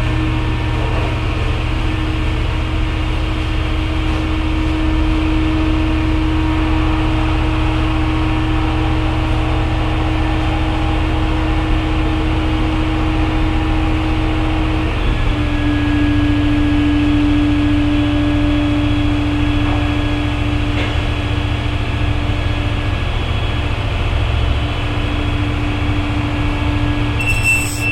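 Hydraulic lift running: a steady mechanical hum with a held tone that drops slightly in pitch about halfway through, stopping right at the end.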